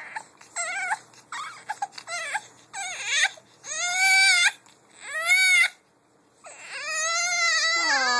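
Infant fussing and crying in high-pitched wails: short whines at first, growing into longer cries, with a brief break about six seconds in before one long continuous cry. A baby protesting at being pinned down by its twin.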